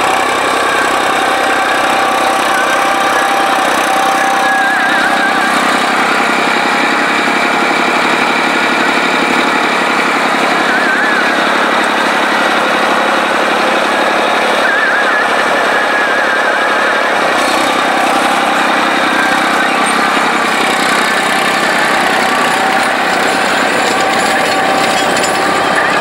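Farm tractor's diesel engine running steadily as it ploughs a field, a loud, even, fast clatter.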